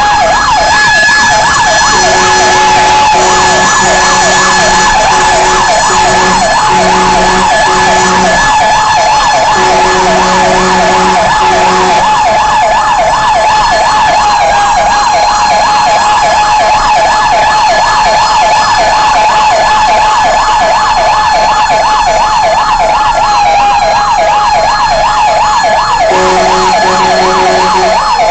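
Fire truck siren sounding a fast up-and-down yelp over a steady high tone while the truck responds to a fire alarm. A lower horn blasts again and again in the first twelve seconds or so, and again near the end.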